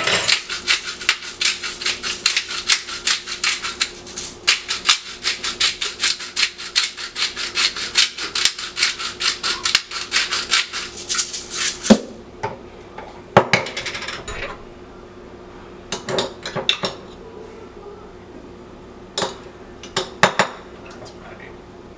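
Rapid, regular strokes of a kitchen utensil working on food or a board, several a second, for about twelve seconds, then a few scattered clicks and knocks.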